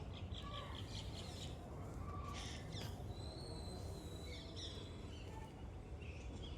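Birds chirping and calling, including a quick run of repeated high notes near the start, over a steady low rumble of outdoor noise.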